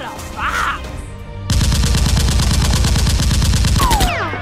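Rapid automatic gunfire sound effect: one long burst of quickly repeating shots begins about a second and a half in and stops shortly before the end.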